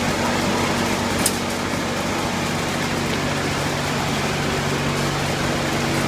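Shrimp colour-sorting machine running: a steady mechanical hum and rush of noise, with one sharp click about a second in.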